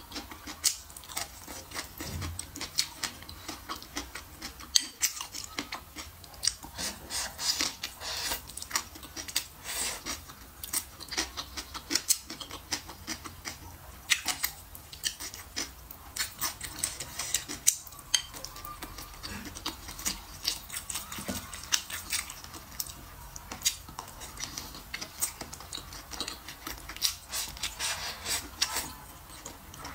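Close-miked chewing and crunching of crisp greens and pickled vegetables, a dense run of sharp crunches and wet mouth clicks, several a second.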